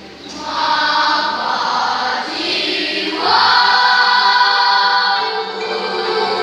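Choir singing a sustained, held melody in several voices. The voices come in just after the start and grow louder about three seconds in.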